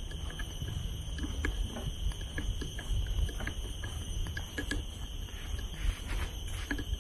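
Wind rumbling on the microphone of a walking tour, with scattered light ticks and a steady high hiss behind it.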